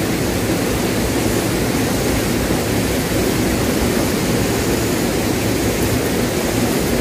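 Steady rushing of flowing river water, an even noise with no distinct events.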